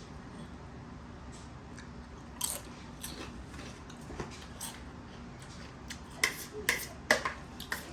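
Someone tasting pico de gallo: sharp clicks and crunches of eating, a few scattered at first and a quicker, louder run in the last two seconds.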